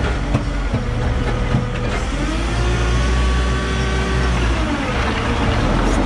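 JCB 531-70 telehandler's diesel engine, heard from inside the cab, revving up about two seconds in and holding there while the boom lifts a load of firewood, then dropping back down near the end.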